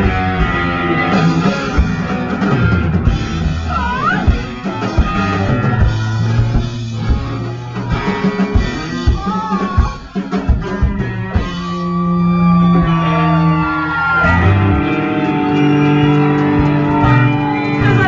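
Live rock band playing loud, with drum kit and electric guitar. The drum hits thin out about two-thirds of the way through, leaving long held notes ringing.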